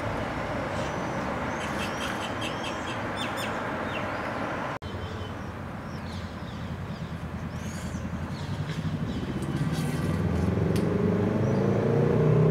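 Street ambience: steady road traffic noise with small birds chirping. A motor vehicle's engine grows louder over the last few seconds, and the sound cuts out for an instant about five seconds in.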